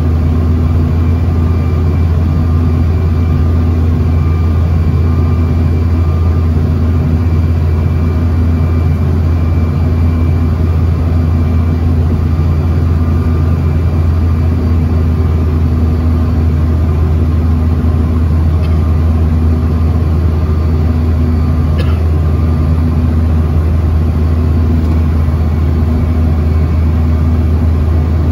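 Steady in-flight cabin drone of a Bombardier CRJ-900 jet airliner: its rear-mounted GE CF34 turbofan engines and the airflow past the fuselage, a strong low hum with faint steady whines above it.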